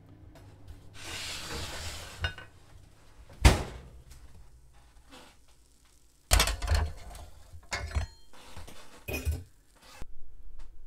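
Metal baking tray being handled: a brief hissing rustle, one sharp knock, then from about six seconds in an irregular run of clanks and knocks as the tray is moved and set down.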